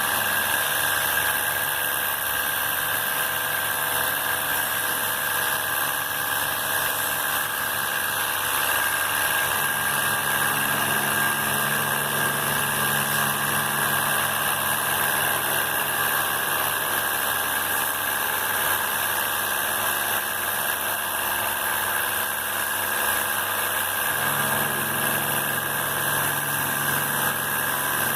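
An electric pressure washer's pump motor running steadily with a constant hiss of spraying water, as used to wash an air conditioner. Its low hum shifts pitch a couple of times.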